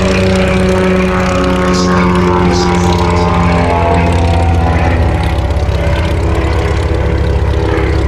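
Bellanca Super Decathlon's four-cylinder Lycoming engine and propeller running in a close pass. The pitch falls slightly as it goes by, and about five seconds in the sound drops a little as the plane pulls away.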